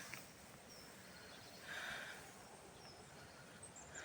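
Quiet outdoor ambience with a few faint bird chirps and a soft swell of noise about two seconds in.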